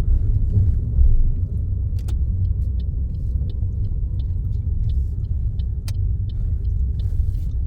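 Car driving along, heard from inside the cabin: a steady low rumble of road and engine noise, with a few faint, irregular ticks over it.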